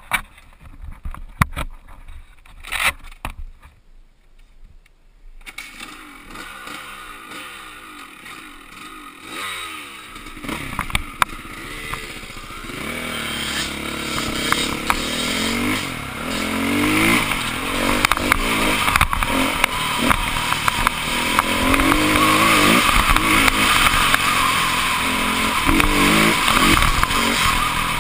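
Dirt bike engine pulling away and accelerating up through the gears, its pitch climbing and dropping back at each shift, then running hard and steadily at speed. The first few seconds hold only scattered clicks and knocks before the engine note rises.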